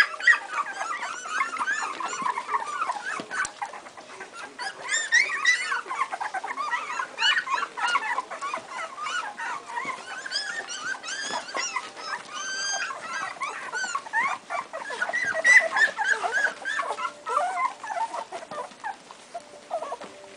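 A litter of two-week-old Airedale terrier puppies whimpering and squeaking, with many short high-pitched calls overlapping throughout.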